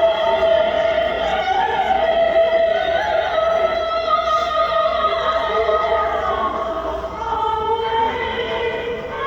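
Music with sustained sung notes.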